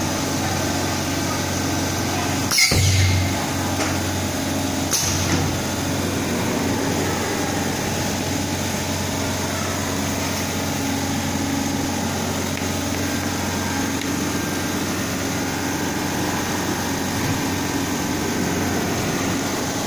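High-frequency PVC welding machine running with a steady hum and hiss. About two and a half seconds in there is a sudden sharp hiss, then a louder low hum for under a second, and a short click comes about five seconds in.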